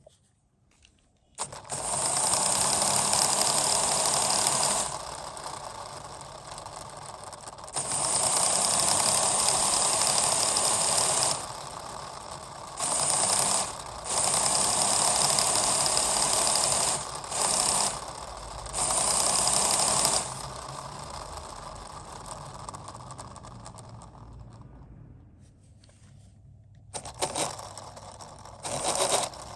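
LEGO Technic freewheel mechanism clicking and rattling as its plastic ratchet and gears turn. Loud bursts of fast clicking last a few seconds each, with quieter running between. The sound fades down before a few short bursts near the end.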